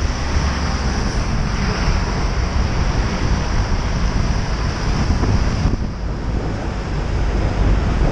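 Wind rushing over the camera microphone of a moving bicycle, mixed with the rumble of road traffic around it; it eases a little about six seconds in.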